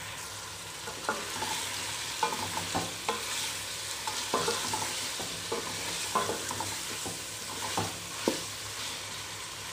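Chicken, chopped tomatoes and green chillies sizzling in a hot metal pot while a wooden spatula stirs them, with short scraping knocks against the pot every half second to a second over a steady frying hiss.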